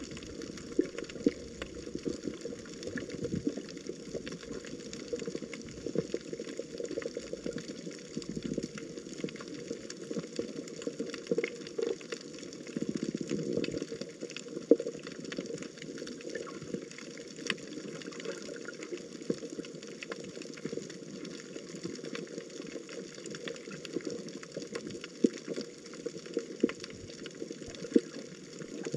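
Water running and splashing, steady and uneven, with many small clicks and knocks scattered through it.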